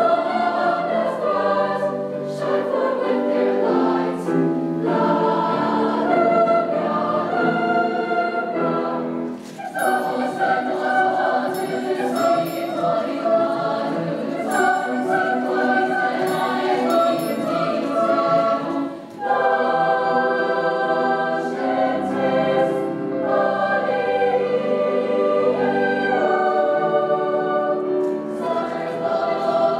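Mixed-voice youth choir singing in full chords, with two brief breaks in the sound, about ten and about nineteen seconds in.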